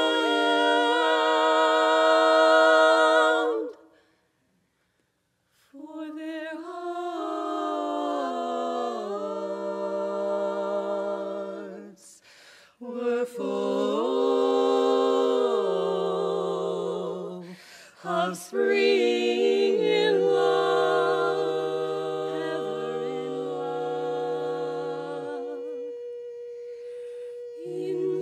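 Four-voice women's barbershop quartet singing a cappella in sustained close-harmony chords, with no words picked out. A held chord breaks off about four seconds in, followed by about two seconds of silence, and then the singing resumes with slow chord changes.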